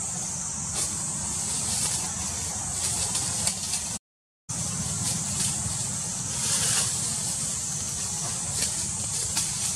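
Steady outdoor background noise: a constant high hiss over a low rumble, cut off by a half-second dropout to silence about four seconds in.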